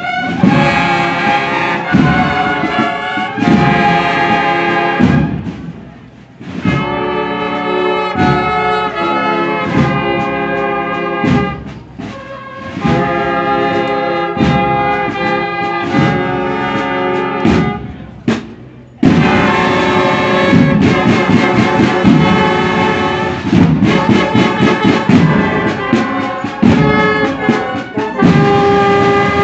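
Marching band of trumpets, trombones and tuba playing a march over snare drums, with brief pauses between phrases about 6, 12 and 18 seconds in, then fuller, denser playing for the rest.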